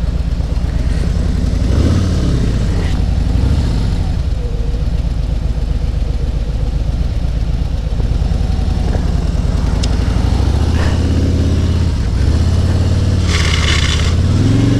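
Motorcycle engine running at low speed, its pitch rising and falling several times as the rider eases on and off the throttle, with a brief hiss near the end.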